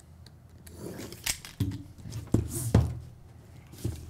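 Utility knife slicing packing tape along the seams of a cardboard box: a handful of short, sharp cutting and scraping strokes, with knocks from handling the box.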